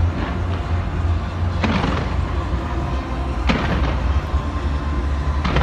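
Fireworks going off in a dense display: a continuous deep rumble of bursts, with sharp bangs standing out a little under 2 seconds in, about 3.5 seconds in and near the end.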